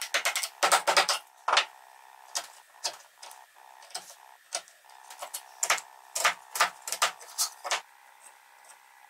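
Hand tools working a wooden dovetail joint: a quick run of sharp chisel clicks and scrapes in the first second and a half, then scattered single light taps and scratches while the joint is marked with a pencil.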